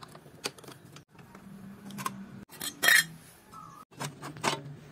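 Sharp metallic clinks and clanks as a screwdriver and the sheet-metal fan cowling are worked off a Vespa PX engine. The loudest clank comes about three seconds in, with another near the end.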